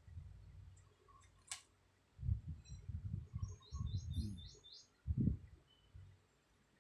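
A woman snoring in her sleep: a run of low, rough pulses, the loudest about five seconds in. A bird chirps a quick series of faint high notes in the middle.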